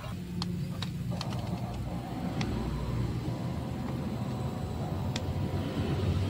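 Low, steady engine-like rumble from a radio-controlled model fireboat, slowly getting louder, with a few sharp ticks.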